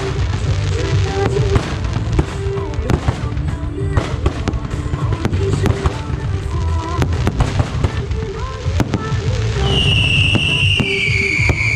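Fireworks display: aerial shells and rising comets going off in rapid, irregular crackles and bangs over steady background music. About ten seconds in, a loud high whistle starts and slowly falls in pitch.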